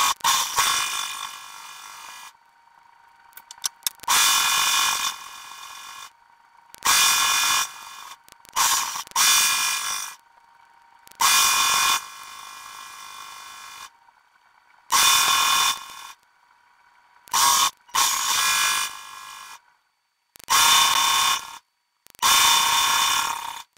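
Serger (overlocker) running in short bursts of about a second each as fabric is fed through, stopping and starting roughly ten times. The playback is sped up, which makes the machine's whir sound high-pitched.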